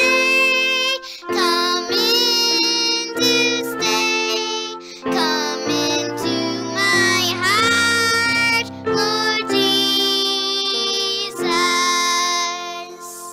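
Children's worship song playing: voices singing over instrumental backing, with the last note held and fading out near the end.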